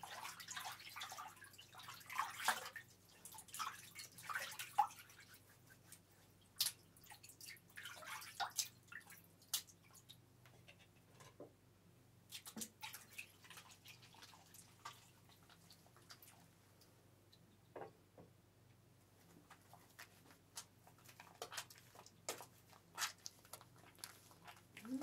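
Hair-washing sounds: water dripping and splashing on wet hair, with irregular wet crackles and clicks.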